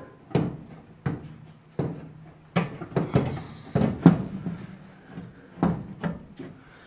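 Sharp, irregular metallic knocks and clicks, about a dozen, bunched in the middle, as the pivot bolt is worked out of the 1948 Ford F1's cowl vent handle.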